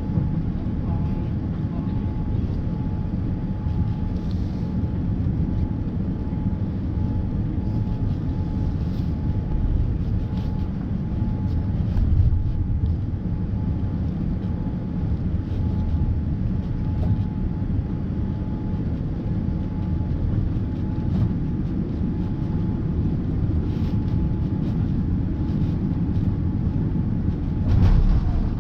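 Cabin noise of a Boeing 787-9 airliner on landing: a steady low rumble of engines and airflow with a faint steady whine, and brief louder swells about twelve seconds in and again near the end.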